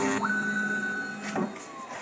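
MINIMO 3020TT desktop CNC milling machine: its loud running hum cuts off at the start, then a thinner motor whine holds steady and slides down in pitch, with a sharp click about a second and a half in.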